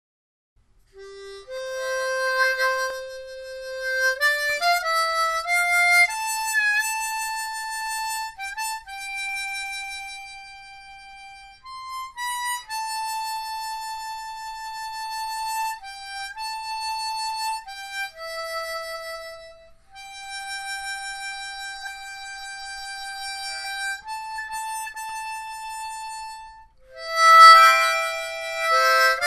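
Harmonica playing a slow tune of long held single notes, starting about a second in and swelling into louder, fuller chords near the end.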